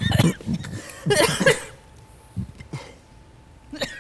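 A person coughing and clearing their throat in several short bursts, most of them in the first second and a half.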